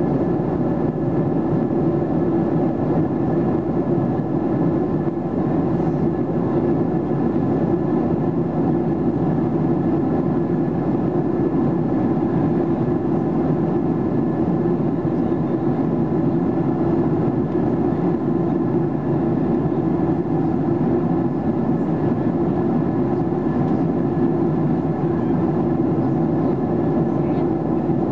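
Steady cabin drone of a Boeing 737-800 in flight: the CFM56-7B engines and the airflow past the fuselage make a constant low rushing hum with a few faint steady whines above it.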